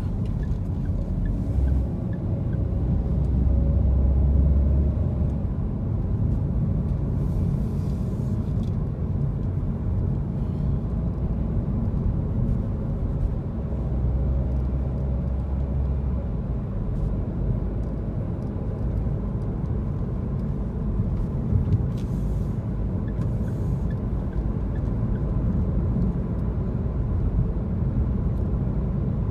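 Steady low rumble of a car driving, engine and road noise, swelling heavier twice, around three and fourteen seconds in.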